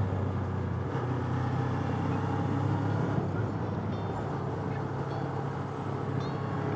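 Suzuki V-Strom 250 motorcycle's parallel-twin engine running steadily while riding, with wind and road noise.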